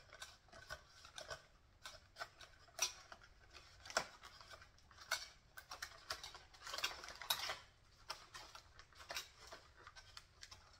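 Faint, irregular clicks and light rustling of hands untwisting wire twist ties and picking at tape to free a doll from its box packaging, with a short rustle about seven seconds in.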